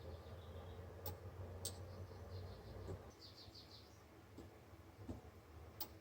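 Quiet low hum with a few sharp, faint clicks, about a second in, again shortly after, and near the end. A short run of faint high chirps comes in the middle.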